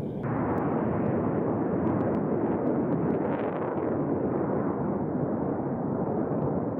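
Jet aircraft in formation flying overhead: a steady, rumbling engine roar that swells a little about three seconds in as they pass.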